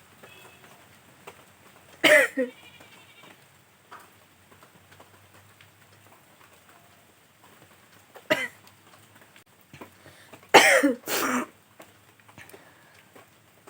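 A woman sneezing in sharp, loud bursts: one about two seconds in, another about eight seconds in, and a quick pair near eleven seconds.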